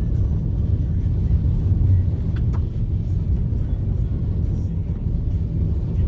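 Low, steady rumble of a 4WD driving on a wet road, heard from inside the cabin: engine and tyre noise at an even pace.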